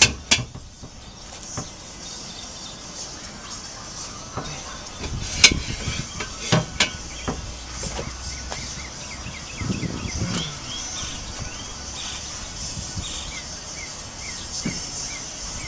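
Metal hand tools clanking and knocking in a few sharp, separate strikes while a wrench levered with a long bar works on the rear axle nut, with short bird chirps in the background later on.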